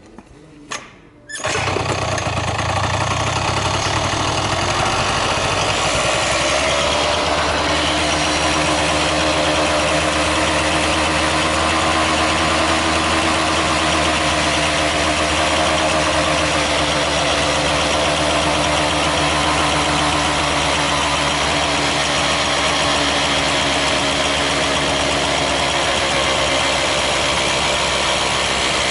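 Honda Gyro Canopy TA02 two-stroke single-cylinder engine, running on its own out of the scooter, starting about a second and a half in and then idling steadily, its note evening out after a few seconds. It runs with no abnormal noise on newly replaced piston rings.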